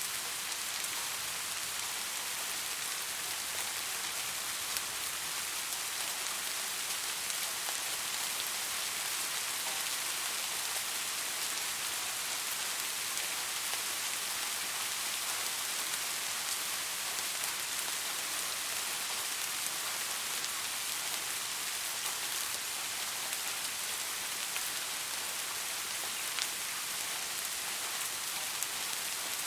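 Soft rain falling steadily, an even patter of drops hitting a surface with occasional single drops ticking out.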